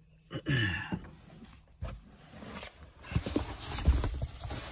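Handling noise in a pickup truck's back seat: rustling and low thumps as gear and a ridged foam sleeping pad are moved about. A short sound falls in pitch about half a second in.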